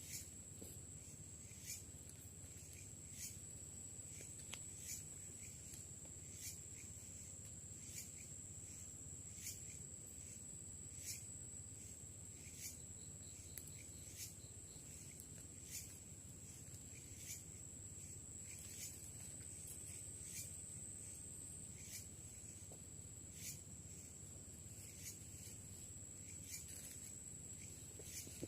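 Night insects, crickets or the like: a steady high-pitched trill with sharp chirps repeating about every second and a half.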